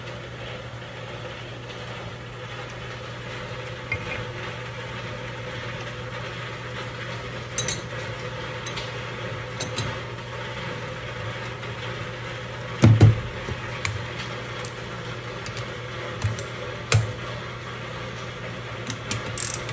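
Scattered knocks and clicks of steel tool parts being handled and set into a steel vise fixture, the loudest a heavy double knock about two-thirds of the way through, over a steady low hum.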